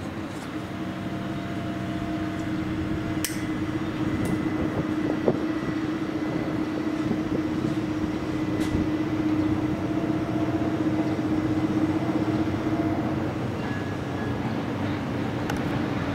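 Heavy diesel cargo-handling machinery running steadily with a held hum that grows louder and fades near the end: a gut ship's grab crane hoisting its grab bucket, with a wheel loader working the quay. A few short sharp clanks break in.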